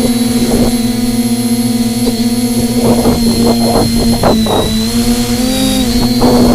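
Electric motor and pusher propeller of a TBS Disco Lite flying-wing plane running at steady throttle, a steady hum with a high whine above it that dips slightly in pitch near the end. Gusts of wind buffet the microphone several times, in the middle and near the end.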